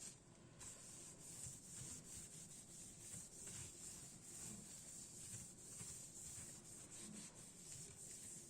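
Faint rubbing and scraping: many small, scratchy strokes over a steady hiss.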